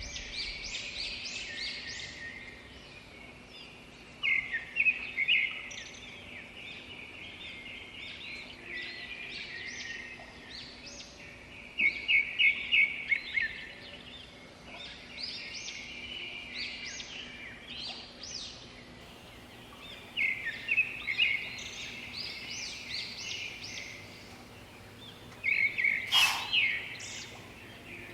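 Wild birds chirping and calling in quick repeated series of short high notes over a soft background hiss, with louder runs of calls at intervals and a single sharp click near the end.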